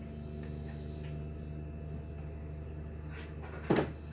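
Things being moved about inside an open kitchen wall cupboard, with one sharp knock near the end, over a steady low hum.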